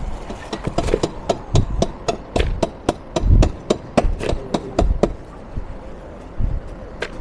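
A quick series of sharp knocks, about four a second, stopping about five seconds in, with one more knock near the end.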